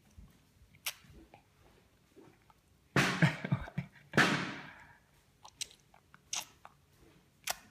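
Baby sucking on a bottle: scattered wet mouth clicks and smacks, with two louder noisy bursts about three and four seconds in.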